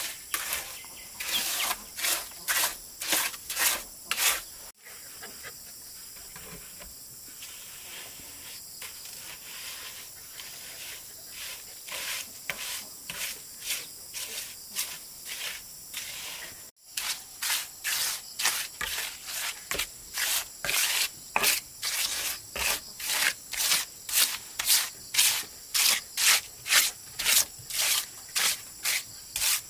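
Rhythmic rubbing or scraping strokes of hand work on wood, about two a second, like sanding or rasping. The strokes break off suddenly twice and are fainter in the middle stretch.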